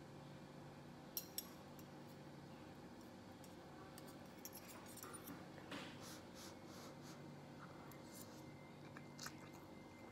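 Faint clinks and scrapes of a metal fork against a ceramic plate while eating noodles: two light taps about a second in, a small cluster around the middle and one more near the end, over a quiet room hum.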